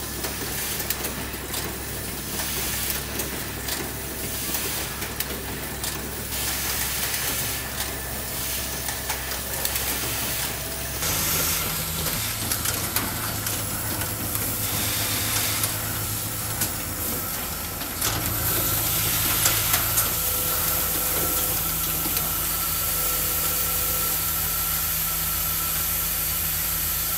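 MCB automatic assembly line running: a steady machine hum with hissing air and many quick clicks from the pneumatic stations. The hum shifts abruptly about eleven seconds in and again past halfway.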